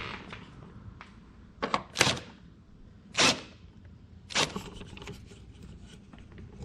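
Hand tools working the rear bumper's Torx screws: four short, sharp clicks and scrapes, the loudest about three seconds in.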